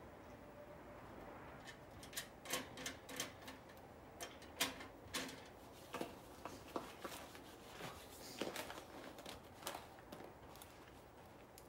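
Irregular light clicks and knocks of aluminum cargo-carrier parts and hardware being handled during assembly.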